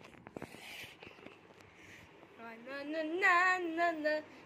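A few clicks and a soft rustle of the phone being handled, then about two and a half seconds in a young female voice starts singing a wordless tune.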